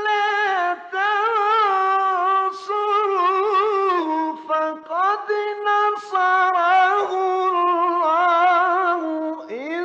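A Quran reciter's solo voice in melismatic tajweed chant, stretching the syllables of a phrase into long held, high notes with quick ornamental wavering, broken by short breaths every second or few.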